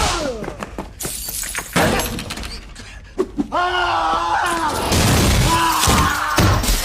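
Fight-scene sound effects: glass shattering and crashing impacts, followed in the second half by drawn-out shouted cries.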